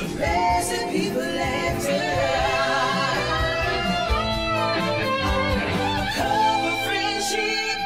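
Sitcom theme song: a female singer holding long notes over a live band backing.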